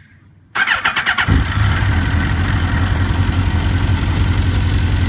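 Suzuki GSX-R1000 K1's inline-four engine being started: the electric starter cranks briefly about half a second in, the engine catches within a second and settles into a steady idle.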